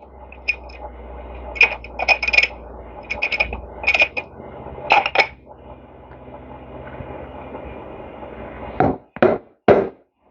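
Small metal parts of an engine's electric starter motor clicking and clinking as they are handled and fitted back together, with three louder knocks near the end. A low steady hum runs underneath.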